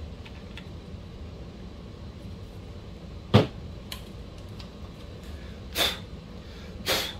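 Hard RC car parts being handled on a bench: one sharp knock about a third of the way in, a faint click, then two duller knocks near the end.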